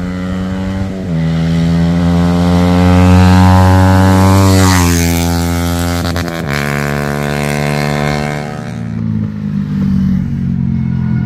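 Yamaha MT-15's single-cylinder engine through an Akrapovič full-system exhaust, accelerating hard in a fly-by. The revs climb with a drop in pitch at each upshift, the note is loudest about three seconds in, then it falls in pitch as the bike goes past and fades about nine seconds in.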